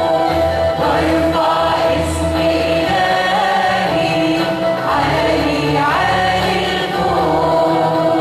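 Choir singing an Arabic Christian hymn, the voices moving over steady held notes and a low bass line underneath.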